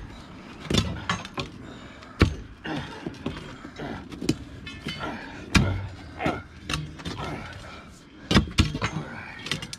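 Steel digging bars jabbing and prying at a concrete post footing in the dirt: irregular sharp metal clanks and knocks, one to three a second.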